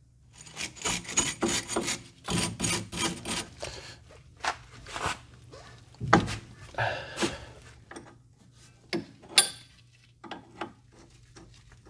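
Hand tools working on metal fittings under a car: irregular clicks, knocks and scrapes of tools against metal parts, with one sharp click about nine and a half seconds in.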